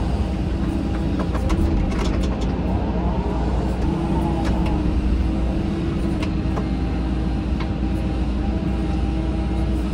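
Caterpillar 313 hydraulic excavator's diesel engine running steadily, heard from inside the cab, with a gently shifting hydraulic whine and a few sharp clicks and knocks as the machine works.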